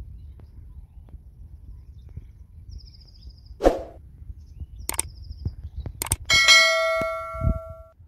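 Subscribe-button sound effect: a quick swoosh, two sharp clicks, then a bell ding that rings out for over a second.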